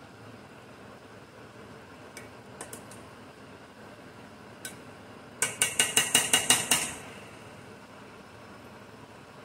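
Metal spoon clinking against a stainless-steel saucepan of boiling vegetables: a few light clicks, then a quick run of about nine sharp taps lasting just over a second, over a faint steady hiss.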